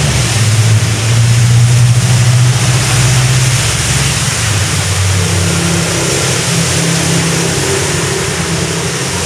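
Heavy rain hissing steadily, with the low hum of a vehicle engine running under it; the engine's pitch shifts about halfway through.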